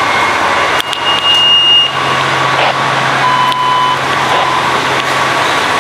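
Fire apparatus engines running in the station bay, a loud steady noise with a low hum underneath. A few short high electronic beeps sound over it.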